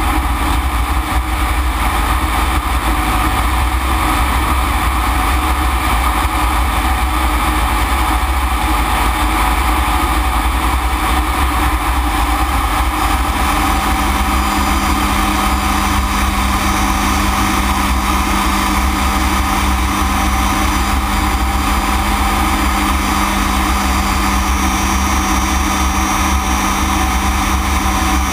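Single Rolls-Royce Viper turbojet of a BAC Strikemaster running steadily, heard from inside the cockpit as a constant loud rush. A steady low tone comes in about halfway through.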